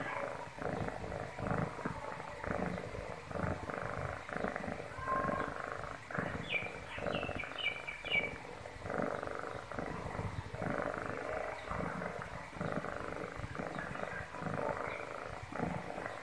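A kitten purring close to the microphone: a rough, continuous rumble that swells and eases every second or two.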